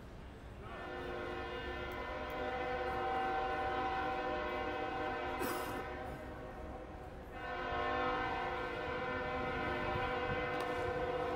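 Train horn sounding two long, steady blasts of several pitches at once: the first lasts about six seconds, and the second starts about a second after it ends.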